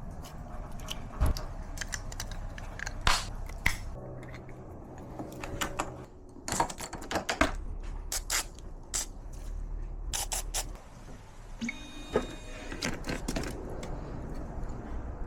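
Irregular small metallic clicks and taps of lock parts and locksmith's tools being handled during a lock rekey, with a brief metallic ringing about twelve seconds in.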